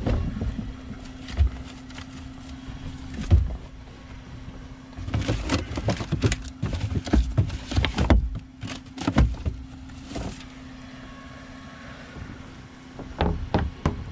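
Rummaging in a plastic wheeled trash bin: irregular knocks and bumps against the bin and rustling of bags and cardboard, thickest from about five to ten seconds in and again near the end. A steady low hum runs underneath.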